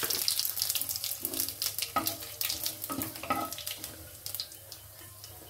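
Dried red chilli, radhuni seeds and bay leaves sizzling and spluttering in hot oil in a kadai as the tempering is fried. It is a dense crackle that fades steadily, with the spices stirred by a spatula.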